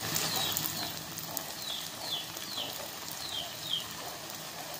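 A ring of sel roti batter sizzling in hot oil in an iron kadai, a steady frying hiss. Over it a bird gives short, falling chirps, about seven times.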